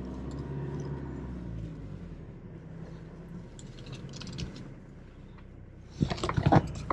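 Toyota Hilux pickup's engine running with a steady low hum that fades after about two seconds. Near the end comes a short burst of sharp knocking and rattling.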